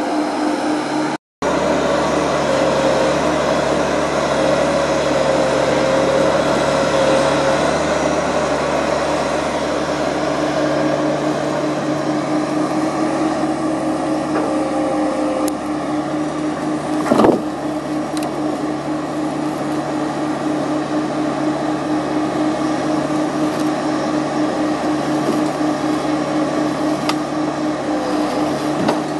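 Timberpro TF840B forwarder's diesel engine running steadily under load as its crane and grapple work, with a wavering whine over the first half. A single loud knock comes about two-thirds of the way through.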